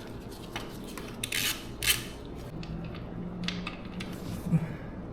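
Metal clinks and clicks of a 12 mm socket and wrench working the motorcycle's oil drain bolt, with a short run of quick clicks about a second and a half in.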